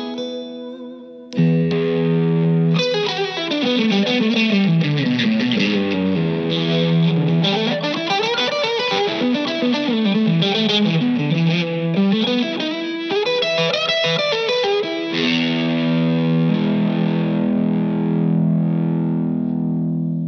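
Electric guitar, a Fender Stratocaster played through an amp: a held chord, then fast runs of notes sweeping down and back up the neck, ending on a long chord left to ring.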